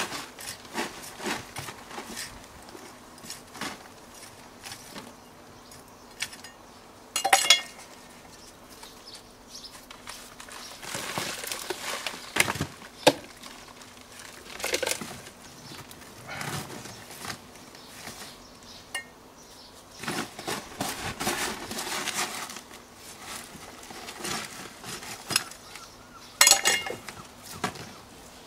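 Hands working in a plastic grow bag of compost: rustling and crinkling of the bag and soil, with scattered clicks and knocks of small plastic plant pots. Two louder sharp knocks come about seven seconds in and near the end.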